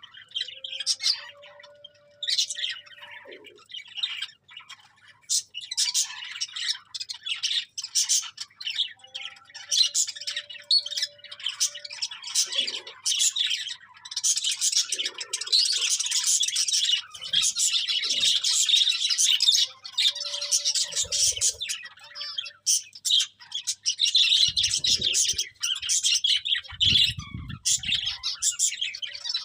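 Several budgerigars chirping rapidly and continuously, busiest in the middle, with a few low thumps near the end.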